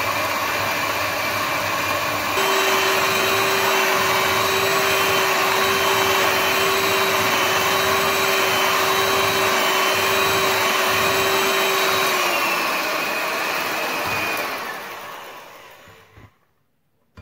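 Electric hand mixer whisking a hot sugar syrup and gelatin mixture in a glass bowl, its motor whirring steadily. About two seconds in it steps up to a louder, faster speed. Near the end it slows and winds down to a stop.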